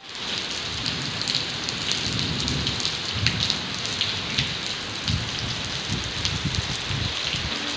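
Heavy rain falling steadily on paving and garden foliage, a dense patter of drops with a low, uneven rumble underneath.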